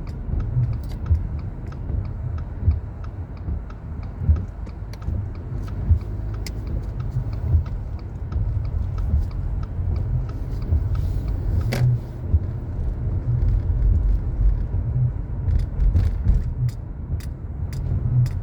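Car driving, heard from inside the vehicle: a steady low rumble of engine and road noise, with scattered light ticks and one sharper click about twelve seconds in.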